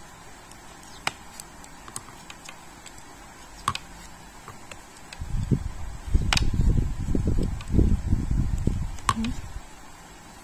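Metal knitting needles clicking together lightly and irregularly as stitches are worked. From about five to nine and a half seconds in, a louder low, fluttering rumble of rubbing or handling noise covers them.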